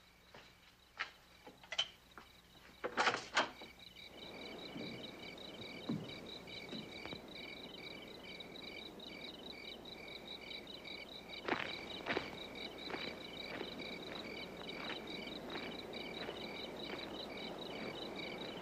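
A few footsteps and knocks, the loudest about three seconds in, then crickets chirping in a fast, even pulse over a low hiss. Two more sharp footfalls come about halfway through, followed by faint steps.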